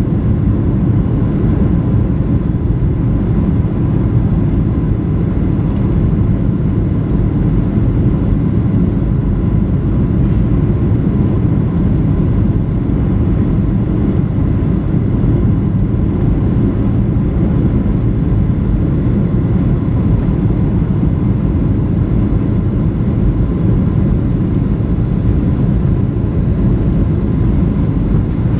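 Steady low cabin rumble inside a Boeing 737-900 with its CFM56-7B engines running, with a faint steady whine on top and no sudden changes.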